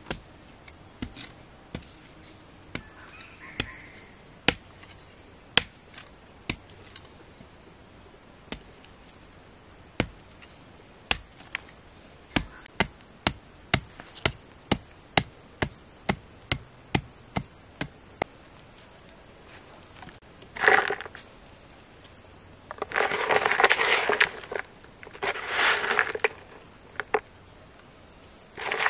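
A series of sharp knocks, sparse at first and then about two a second, like chopping, over a steady high-pitched insect drone. In the last third the knocks stop and louder rustling or scraping bursts take over.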